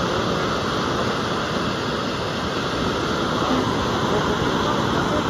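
FlowRider surf simulator's pumped sheet of water rushing steadily over its blue surface, a continuous loud torrent.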